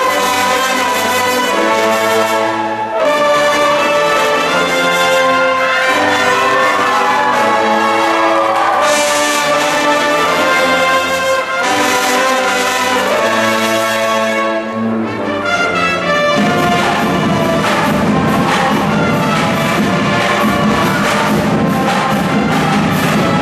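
A high school pep band's brass section of sousaphones, trumpets and trombones playing held chords together. About two-thirds of the way through the sound turns denser and more rhythmic as the drumline joins in.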